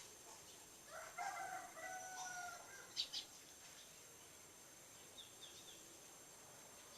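A bird calls for about two seconds, a run of pitched, fowl-like notes, over a steady high insect drone. Two sharp clicks follow about three seconds in.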